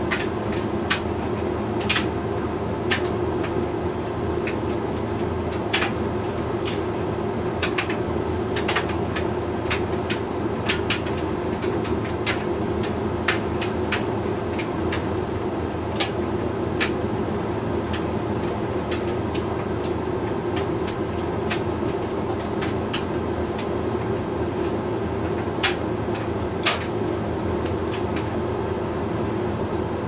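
Hoover Link X Care HLX C10DRGR condenser dryer running a Lingerie cycle: a steady hum from the turning drum and fan. Irregular light clicks come every second or so as the load tumbles against the drum.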